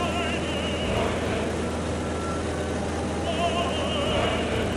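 Light single-engine aircraft's piston engine and propeller droning steadily, heard inside the cabin. A faint wavering voice-like tone rises over the drone near the start and again near the end.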